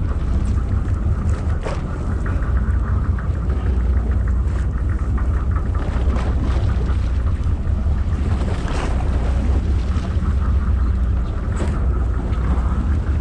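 Steady low rumble of a sportfishing boat's engine running, with wind on the microphone and a few faint clicks and knocks.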